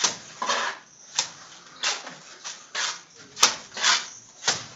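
Plastering by hand: a trowel scraping wet plaster mortar out of a wheelbarrow and slapping it onto a wall, in a steady rhythm of about two strokes a second, with a few sharp knocks among the strokes.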